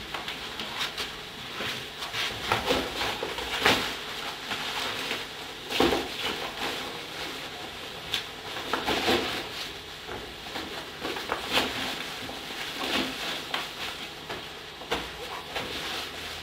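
Clothes being handled and stuffed into a fabric bag: irregular rustling and soft knocks, with a louder knock about 3.5 s in and another about 6 s in.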